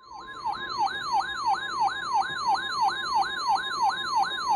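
Electronic yelp siren, its pitch sweeping quickly up and down about three to four times a second over a steady high tone.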